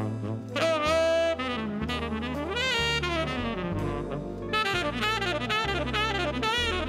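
Tenor saxophone playing a quick, bending solo line over a bass line, in a 1970s big-band jazz recording.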